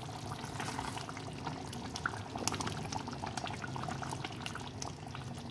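Kofta curry gravy simmering in a frying pan on medium heat, a steady soft bubbling with many small irregular pops.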